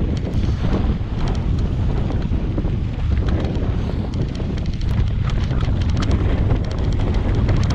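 Wind noise on the microphone of a mountain bike rolling down a gravel road, a steady low rumble, with scattered small clicks and rattles from the tyres and bike over loose stones.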